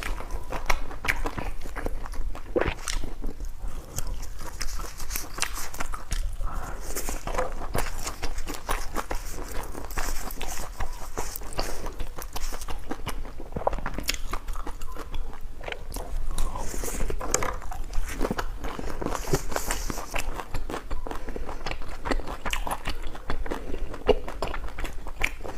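A person eating close to the microphone: steady chewing and biting with many irregular sharp clicks of food breaking between the teeth.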